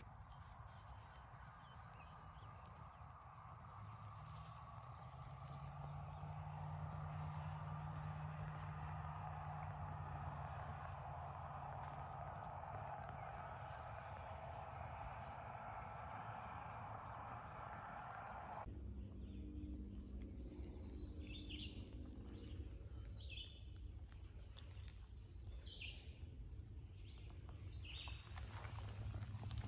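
Faint outdoor ambience: a steady high-pitched hum over a soft rushing hiss. About two-thirds of the way through it cuts off abruptly to quieter ambience with scattered bird chirps.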